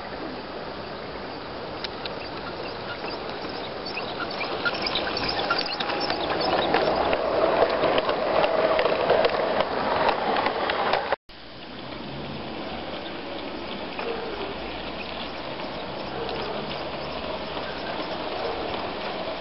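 Garden-scale (45 mm gauge) model train running past close by, its wheels rattling and clicking over the track, growing louder to a peak about ten seconds in. After a sudden break it runs on more quietly and steadily, with a rushing hiss underneath throughout.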